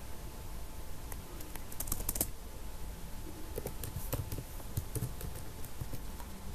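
Typing on a computer keyboard: irregular key clicks in short runs, over a faint steady hum.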